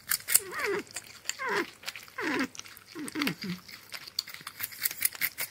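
North American porcupine making about four short whining calls that slide steeply down in pitch, over the first three and a half seconds, amid quick wet clicks of chewing sweet potato.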